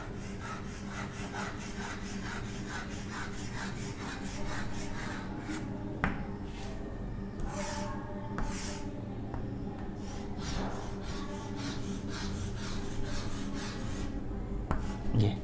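Chalk scratching on a chalkboard as a row of coil loops is drawn: a quick, even run of short strokes, about three a second, then slower, uneven strokes with a couple of sharp taps.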